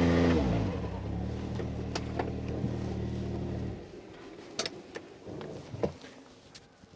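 Can-Am Maverick X3 Turbo's three-cylinder turbocharged engine coming down from a rev to idle, idling steadily, then shut off a little under four seconds in. A few light clicks and knocks follow.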